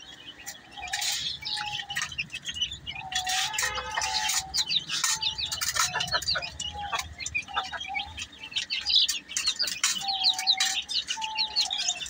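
Chicks and small caged birds chirping nonstop: many quick high chirps with repeated longer, lower calls among them. A few knocks and rustles sound as the feed dish is handled.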